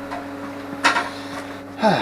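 A single short, sharp knock about a second in, over a steady low hum.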